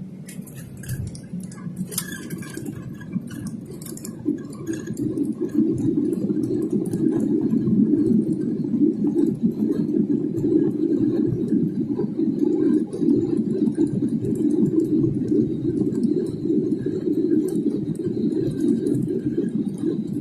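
Cabin noise inside a Boeing 737 airliner: a steady low roar of engines and airflow that grows louder a few seconds in and then holds, with light rattling and clinking of cabin fittings.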